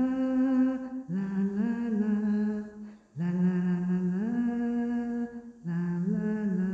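A voice humming a slow, wordless melody a cappella, in held notes that step up in pitch, in phrases broken by short breaths.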